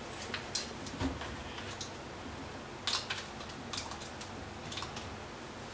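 Scattered light clicks and taps from a plastic water bottle being handled with work-gloved hands, with a dull knock about a second in.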